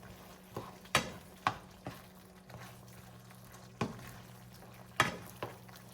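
A spoon stirring sauce in a pot, knocking against the side of the pan several times at irregular intervals, over a faint steady low hum.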